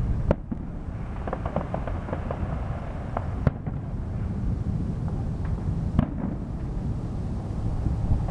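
Fireworks going off: three sharp bangs, near the start, about three and a half seconds in and about six seconds in. Scattered smaller pops and crackles fall between them, over a steady low rumble.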